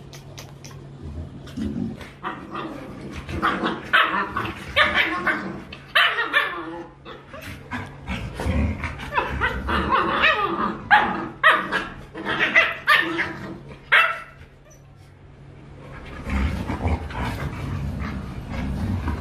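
Rottweiler puppy and adult Rottweilers play-fighting: many short barks and yips, loudest through the middle, falling away near the end to lower, rougher sounds.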